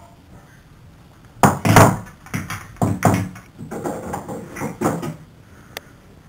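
A loud run of thumps and scuffling that starts suddenly about a second and a half in and keeps going in uneven bursts. A single sharp click comes near the end.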